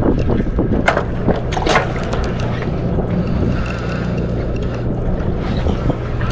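Sport-fishing boat's engine running with a steady low hum, under water and wind noise. A few sharp clicks or knocks come about a second in and again shortly after.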